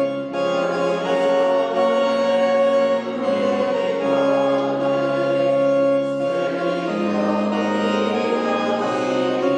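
Congregation singing a slow hymn with organ accompaniment, long held chords changing every second or two.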